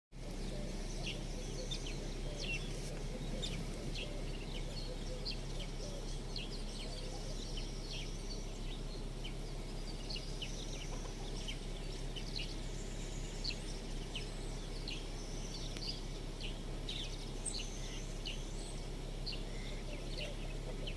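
Many small birds chirping together, a busy stream of short, high calls overlapping one another, over a steady low hum.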